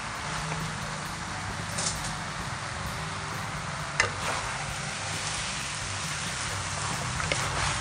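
Water spinach, minced pork and fermented soybeans sizzling steadily as they are stir-fried in a metal wok, the greens turned and tossed with a wooden spatula. A few knocks and scrapes of the spatula against the pan come through, the sharpest about four seconds in, over a low steady hum.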